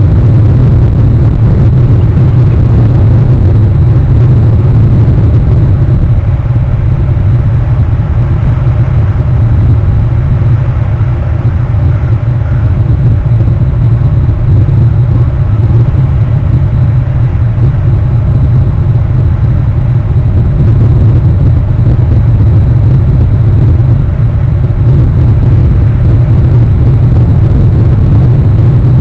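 Loud, steady low rumble with a fainter hiss above it, unchanging and with no separate events.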